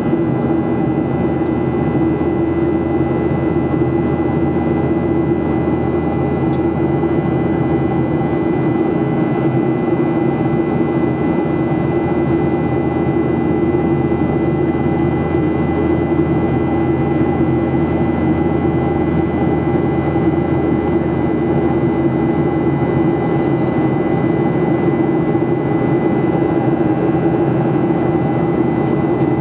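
Boeing 737-800's CFM56-7B jet engines heard from inside the cabin beside the wing in flight: a steady, unchanging drone with a thin, steady high whine running through it.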